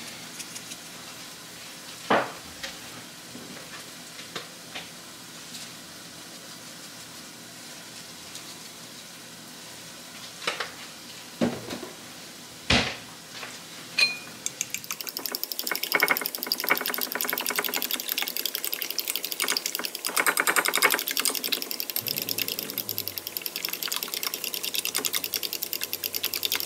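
A few separate clinks in the first half. Then, about halfway through, a metal utensil starts beating eggs and milk in a glass bowl: a fast, steady clatter of metal on glass that runs on to the end.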